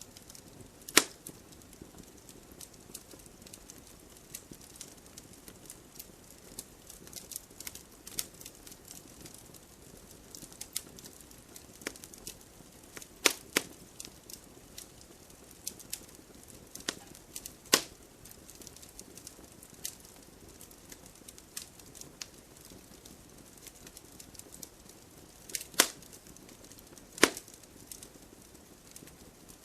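Wood campfire crackling: frequent small snaps over a faint low hiss, with five loud sharp pops spread through it.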